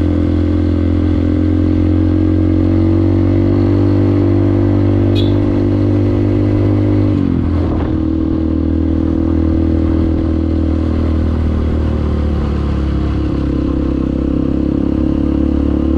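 Trail motorcycle engine running steadily under way, heard from on the bike. About seven seconds in the engine note dips sharply and recovers, then eases a little lower later on.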